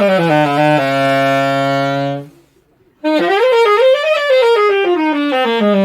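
Freshly repaired saxophone being test-played: a falling run that settles on a held low note, then, after a short pause about three seconds in, a run up and back down that again ends on a held low note near the end.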